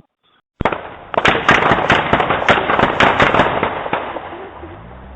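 A rapid string of firecrackers going off: many sharp, echoing bangs, several a second, starting about half a second in and dying away after about four seconds.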